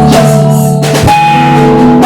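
Live praise band music: drum kit and guitar under long held notes, with a sharp drum hit about a second in.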